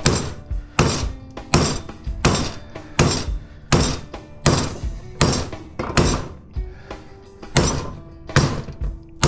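A machete cutting into the copper windings of an electric motor stator, in steady, evenly spaced sharp metallic blows, about one every three-quarters of a second.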